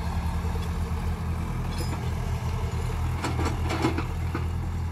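Diesel engines of two Tata Hitachi hydraulic excavators running steadily under work, with a few faint clanks about three seconds in.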